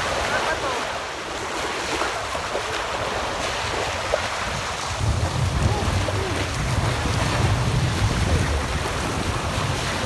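Small sea waves breaking and washing up the shore in a steady surf wash, with a low wind rumble on the microphone that comes in about halfway through.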